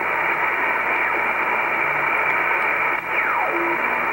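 Icom communications receiver's loudspeaker putting out steady shortwave band hiss in upper-sideband mode while being tuned across the 10 MHz band. About three seconds in, a carrier whistle slides down in pitch and settles into a low steady tone as the dial passes a signal.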